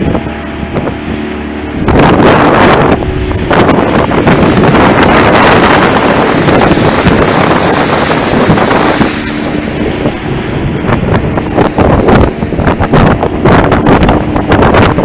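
Small outboard motor running steadily at speed on an aluminium boat, with strong wind on the microphone and rushing water and spray that are loudest from about two seconds in until about nine seconds. In the second half, short knocks and slaps run over the steady engine note.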